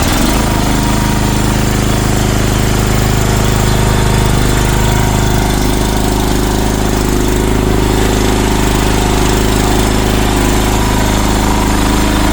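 CFG MX15RX mini excavator's engine catching right after being cranked, then running steadily at idle just after a start.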